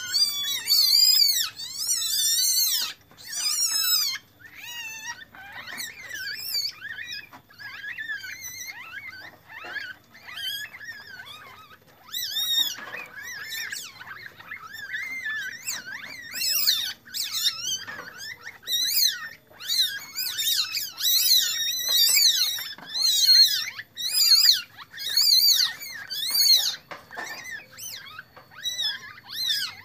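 Newborn Asian palm civet kits squealing: many high-pitched, wavering squeaks in quick runs, quieter for a while in the middle and thick and loud again in the second half.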